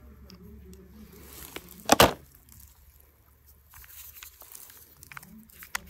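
Light handling noises as a small die-cast toy car is held and pushed into crumbly coloured sand: one sharp click about two seconds in and a few faint taps, over a low steady hum.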